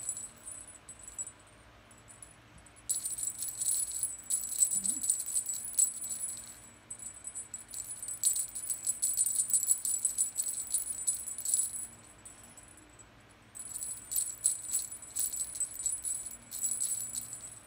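Cat teaser wand with feathers and beads jingling as it is shaken, in repeated bursts with short pauses between them.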